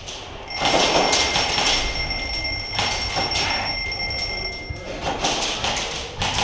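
An electronic alarm tone holds steady for about four seconds over a rushing hiss, starting abruptly and cutting off. It is typical of a Hardpoint game's capture device sounding as the point is taken.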